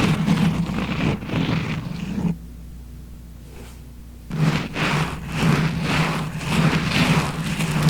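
Close-up rubbing and scratching on the microphone, a scalp-massage ASMR sound; it stops for about two seconds a little after two seconds in, then starts again.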